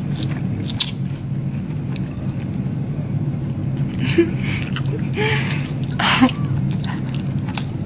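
Someone chewing a mouthful of sugar-coated Korean cheese dog with stretchy mozzarella, with a few short wet mouth sounds and smacks between about four and six seconds in, over a steady low hum.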